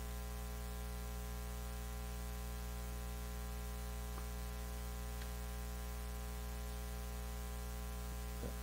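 Steady electrical mains hum, a low buzz with faint hiss, holding unchanged throughout.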